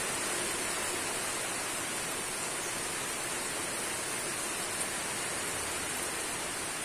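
Steady hiss of heavy rain from a storm.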